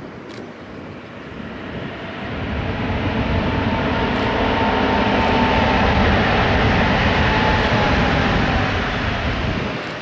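Airbus A320neo's Pratt & Whitney PW1100G geared turbofan engines running as the airliner rolls along the runway toward the listener. The jet noise swells over the first few seconds and eases off near the end, with a steady whine over the rush.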